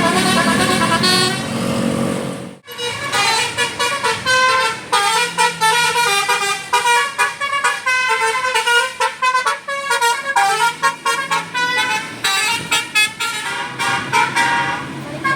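Telolet basuri bus horn, a multi-tone musical air horn, playing a fast tune of short stepped notes. The sound breaks off sharply about two and a half seconds in, and another horn tune follows.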